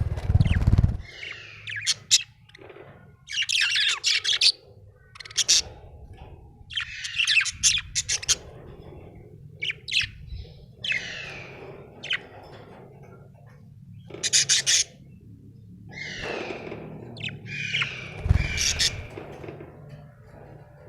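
Budgerigar chirping and chattering in a dozen or so short, scratchy warbling bursts with brief pauses between them. Low thuds come right at the start and again near the end.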